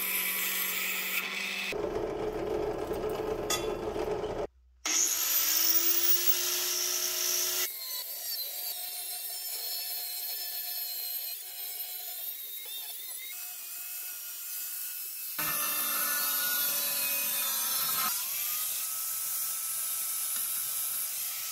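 A drill press drilling steel plate, then a DeWalt angle grinder with a cut-off wheel spinning up and cutting through steel plate in several separate passes, with abrupt changes between passes.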